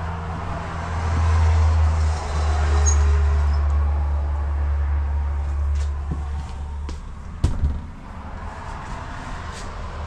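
A steady low hum that fades back about seven seconds in, with a sharp knock soon after and a few light clicks.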